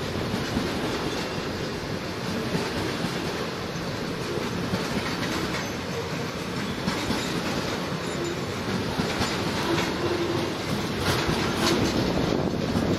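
Freight train of tank wagons rolling past: a steady rumble of steel wheels on the rails, with a few sharper clicks over rail joints near the end.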